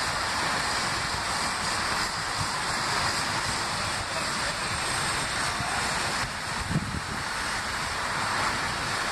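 Distant R68 subway train approaching along an elevated steel track: a steady, hissing rumble, mixed with wind on the microphone. There is a brief thump about two-thirds of the way through.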